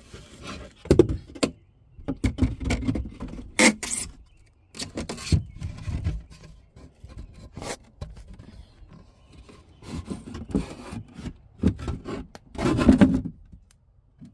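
Irregular scraping, rubbing and knocking of parts being handled and pushed back into place, with several louder knocks and a longer scrape near the end.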